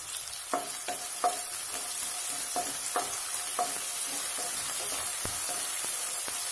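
Sliced onions sizzling steadily in hot oil in a non-stick kadai as they sauté, with a wooden spatula tapping and scraping the pan, the taps coming thickest in the first half.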